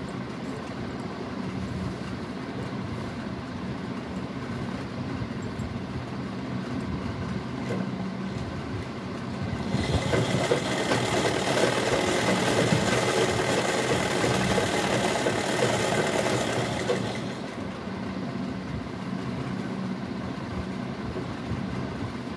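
Merritt sewing machine running as it stitches a seam through fabric, a steady mechanical whirr. About ten seconds in it runs louder and busier for some seven seconds, then eases back to the steadier running.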